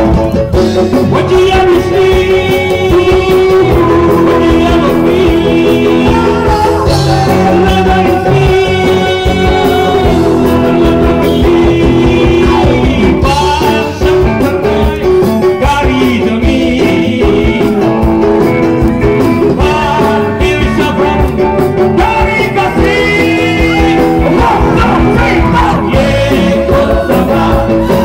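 Live band music played loud through stage speakers: a rock-style song with electric guitar and a singing voice over a steady beat.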